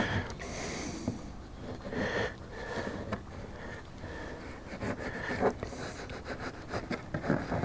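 Small knife cutting into grapefruit rind with faint scattered ticks, while the carver breathes and sniffs audibly through his nose in a few soft swells.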